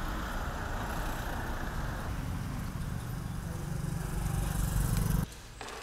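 Street traffic noise, then a motorbike passing close by, its engine growing louder for a couple of seconds before cutting off suddenly near the end.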